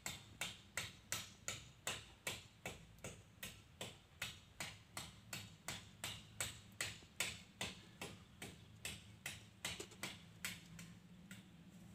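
Old oil dripping from the drain of a car-wash high-pressure pump's crankcase into a catch container, in even drips about three a second that fade out about ten seconds in.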